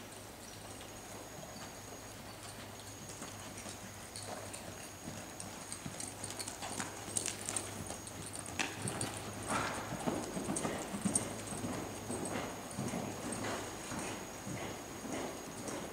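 Hoofbeats of a horse walking on soft dirt arena footing. The steps are irregular and grow louder from about four seconds in.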